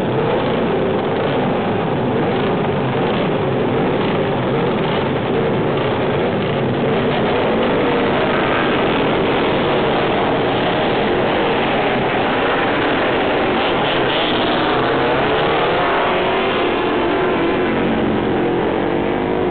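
Many classic racing motorcycle engines running and revving together on a start grid, as bikes accelerate away in turn. Several rising engine notes stand out over the steady din, around the middle and again near the end.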